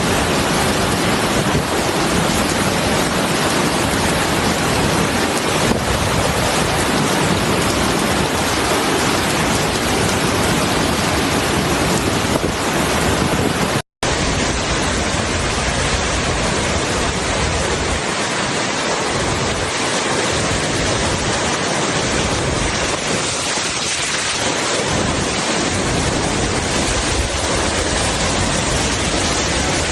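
Hurricane wind and heavy rain: a loud, dense, steady rush of noise with wind buffeting the microphone, in two clips with a brief cut about 14 seconds in.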